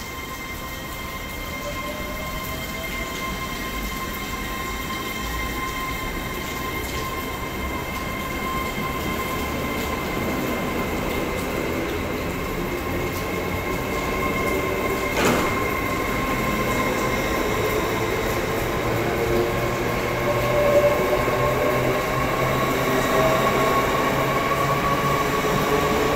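Hitachi Class 801 Azuma electric train pulling out of the station, its traction motors whining and rising in pitch as it accelerates, with steady high electrical whines over the rumble of the wheels. The train grows louder as the carriages roll past, with one sharp knock from the wheels about fifteen seconds in.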